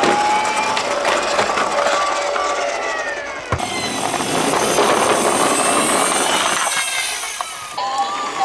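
Toy emergency-vehicle minicars rolling down a slope: a steady rolling rattle of small wheels, with a single knock about three and a half seconds in. Sirens wail faintly beneath the rattle in the first few seconds.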